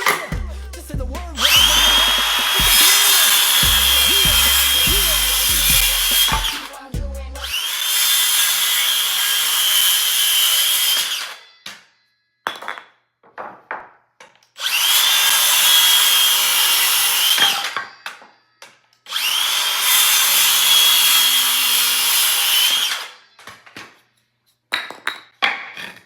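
A handheld power tool working wood, run in four bursts of three to five seconds each, its motor whine rising as each starts and then holding steady. Music with a bass beat plays under the first burst and a half.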